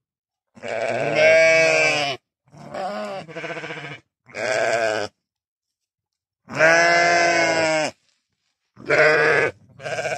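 Livestock bleating: about six separate calls with dead silence between them. Two long, wavering bleats come about a second in and past the middle, with shorter ones between them and near the end.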